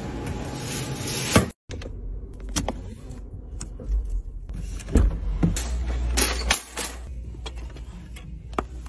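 A car's push-button start: the engine catches with a low rumble for about two seconds in the middle, among scattered small clicks and rattles of handling.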